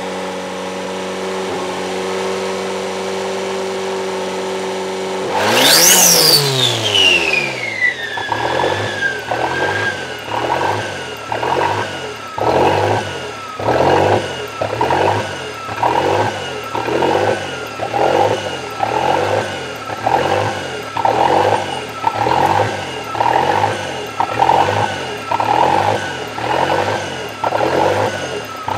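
Toyota 3E-TE turbocharged four-cylinder running steadily, then about six seconds in a sudden loud rev with a whine that falls in pitch over a few seconds, after which the idle surges up and down a little more than once a second. This hunting, bouncing idle is the rough-idle fault; the owner is unsure whether vacuum lines, ECU wiring or the thermostat is to blame.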